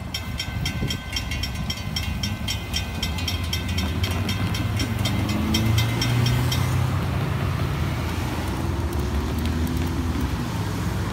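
Railroad grade-crossing warning bell ringing in rapid, evenly spaced dings while the gate arms rise after a train has passed. It stops abruptly about seven seconds in. Cars and a motorcycle start up and drive over the crossing, giving a low engine and road rumble that rises in pitch as they pull away.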